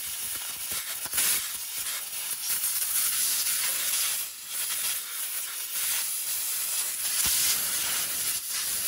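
Compressed-air blow gun hissing steadily as it blasts dirt off around a transfer case shift motor, easing briefly about four seconds in.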